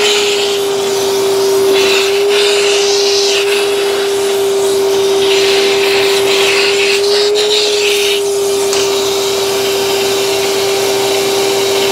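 Shop-Vac wet/dry vacuum running with a steady motor whine, sucking through a 3D-printed nozzle tip drawn along the T-slots of a CNC table. The rush of air swells and fades several times as the tip moves along the slots.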